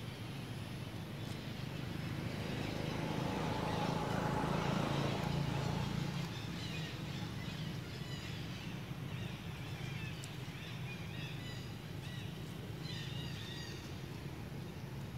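Outdoor ambience: a low rumble swells and fades in the first half, then short high chirping calls come in small clusters.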